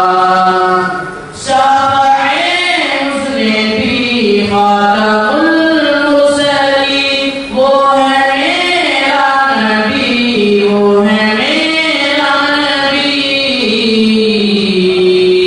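Boys singing a naat, an Urdu devotional poem in praise of the Prophet, unaccompanied into microphones: a melodic line with long held, wavering notes, broken by short breaths about a second in and again about seven and a half seconds in.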